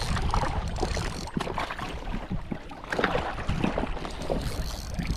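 Wind buffeting the microphone with a steady low rumble, over small waves lapping and splashing against a rocky lake shore in irregular slaps.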